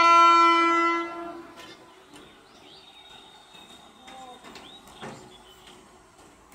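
WAP-4 electric locomotive's horn sounding one loud, steady blast that stops about a second and a half in. After it, only the approaching train is heard, faintly.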